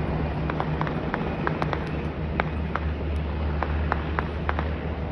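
Military helicopter running with a steady low drone, with irregular sharp cracks scattered through it, several a second at times.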